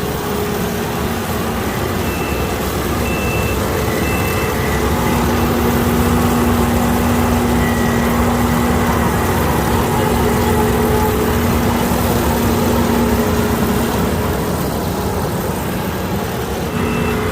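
Kukje KC5130 combine harvester running steadily under load, a loud continuous mechanical din with a steady hum. A few short high beeps sound about two to four seconds in.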